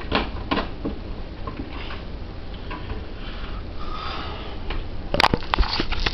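Handling noise at a phone or camera: scattered small knocks and rustles, then a burst of sharp clatter and thumps about five seconds in as the camera is picked up and moved.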